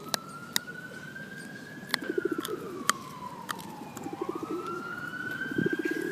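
Pigeons cooing in short throbbing bursts, several times, over the wail of an emergency vehicle siren whose pitch slowly rises and falls twice. A few sharp clicks come in between.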